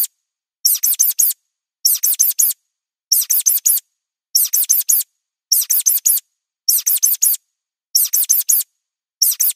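Mouse squeaks on a loop: quick runs of four high-pitched squeaks, a run about every 1.2 seconds with silence between.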